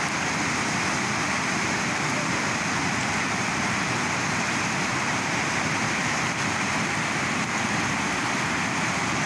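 Fast-flowing mountain river rushing over rocks, a steady, even noise of water.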